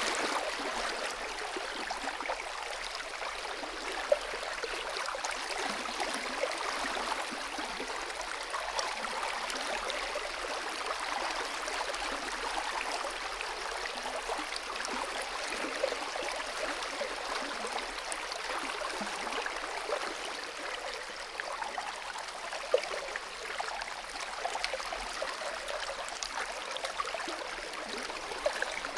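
Shallow stream flowing: a steady, even rush of running water, with a couple of brief sharp ticks.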